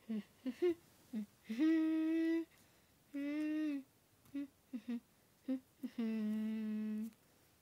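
A person humming: three held notes of about a second each, with several short hums between them.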